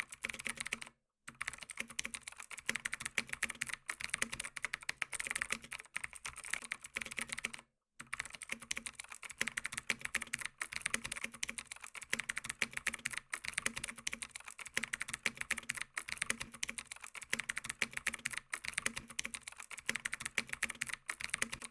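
Computer keyboard typing: a continuous run of rapid key clicks, pausing briefly about a second in and again about eight seconds in.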